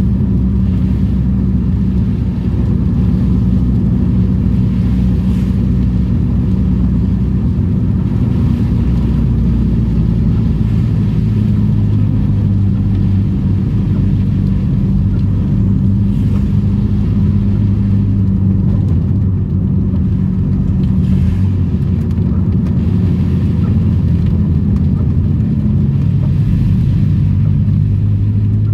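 Daihatsu Charade's engine running steadily while the car is driven, a constant low drone with a slight shift in the engine note partway through.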